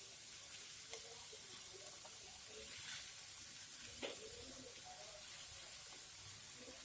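Rice and vegetables frying quietly in a pan, a faint steady sizzle, with a couple of light clicks of the stirring spoon against the pan.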